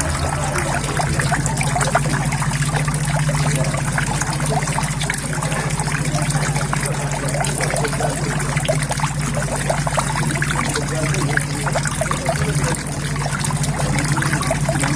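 Water flowing and trickling into a koi pond, a steady stream of small splashes, over a low steady hum.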